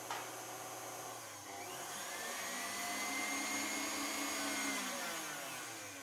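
KitchenAid Artisan stand mixer whisking cake batter in a glass bowl. Its motor hum rises in pitch as the speed goes up about a second and a half in, holds steady, then falls and fades near the end as the mixer winds down.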